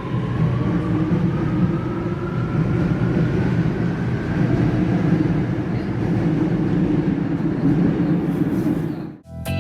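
Shanghai Metro class 09A02 electric train heard from inside the car while running: a steady rumble with a thin motor whine that slowly rises in pitch as the train gathers speed. The sound cuts off suddenly near the end.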